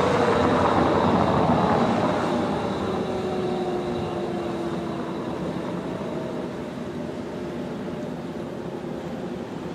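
Federal Signal Thunderbolt 1003 outdoor warning siren winding down after its test, its tone sliding steadily lower and fading out over several seconds above a steady rushing noise.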